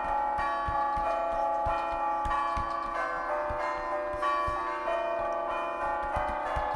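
Tower bells ringing a tune: notes struck one after another every fraction of a second, each ringing on and overlapping the next. Frequent short clicks sound alongside.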